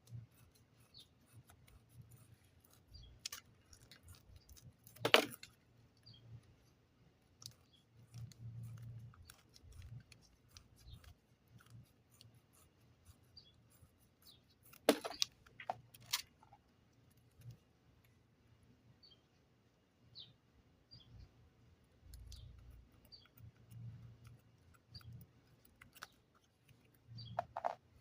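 Scissors cutting clay: sporadic small snips and clicks, with a few louder snips about five seconds in, twice around the middle and once near the end.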